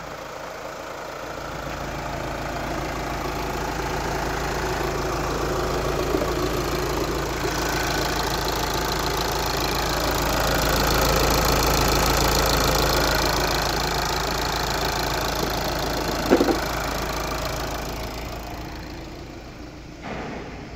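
Audi A4 B8's 2.0 TDI CAGA four-cylinder common-rail diesel idling steadily, growing louder as the microphone passes close over the engine bay and fading again near the end. A single short thump comes about three-quarters of the way through.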